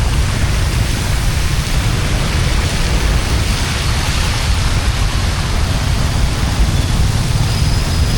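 Steady hiss of heavy rain and running floodwater over a low rumble.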